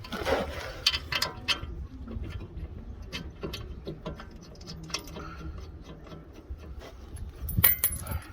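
Socket ratchet clicking in irregular runs, with metal tools clinking against each other; the loudest clatter comes near the end.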